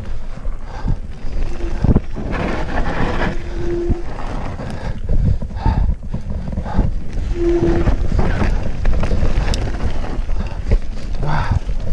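Cube Stereo full-suspension mountain bike descending a dirt singletrack at speed: tyres rumbling over dirt and roots, the bike rattling over bumps, and wind buffeting the camera microphone. Three brief squeals come through it, near the start, around the middle and about two-thirds of the way in.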